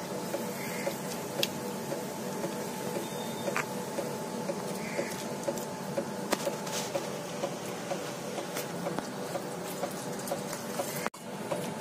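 A small machine running with a steady hum and a light, regular tick a little over twice a second. A few sharp clicks sound over it, and the sound drops out for an instant near the end.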